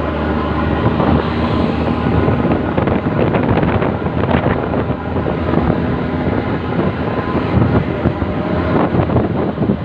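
Mitsubishi Fuso truck's diesel engine running with a loud, gruff 'ngorok' (snoring) exhaust rumble.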